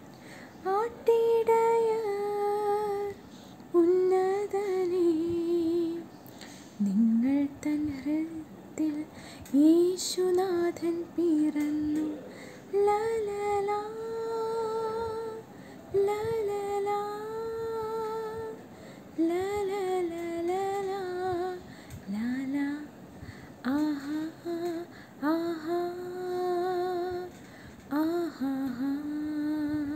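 A young woman singing a Malayalam song solo and unaccompanied, in phrases with short breaths between them and a gentle vibrato on the held notes.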